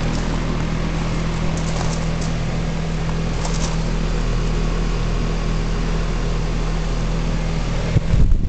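Heil 3-ton heat pump outdoor unit running in heating mode: a steady compressor hum under even fan noise. A louder, uneven low rumble comes in near the end.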